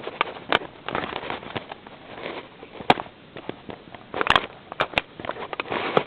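Fingers picking and pulling at a sealed product box's packaging: irregular crackling with scattered sharp clicks.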